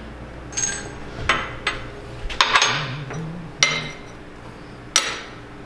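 Steel parts clinking and knocking against the base of a hand arbor press as an axle shaft and its roller ball bearing are set up for pressing: several sharp metallic clinks, each with a short ring.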